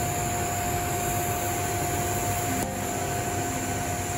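TIG welding arc on 316L stainless steel pipe, hissing steadily with a constant hum under it as the cap pass is laid and filler rod is fed in. The sound dips slightly about two-thirds of the way through.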